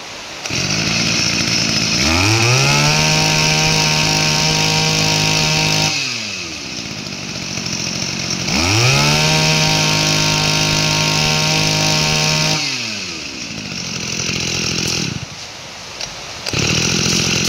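Robin 22 cc two-stroke brush cutter engine catching on a pull-start and idling, then revved twice to a steady high speed for about four seconds each time, its pitch rising and then falling back to idle. Heavy rain hisses underneath.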